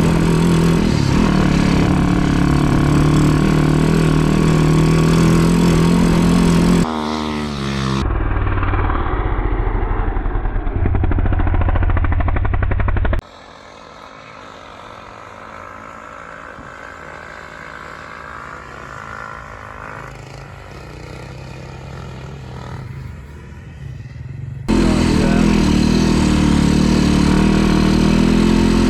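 Snow bike engine running hard at steady high revs while towing through snow, with a change in revs about seven seconds in. The sound cuts abruptly several times, with a much quieter stretch in the middle before the loud engine returns.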